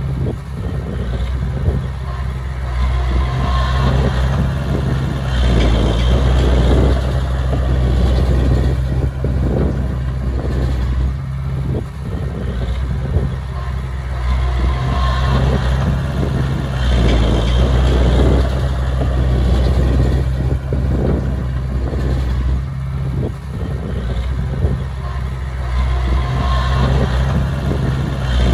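Heavy diesel machinery engine running steadily under load, the rumble swelling and easing in a pattern that repeats about every eleven seconds.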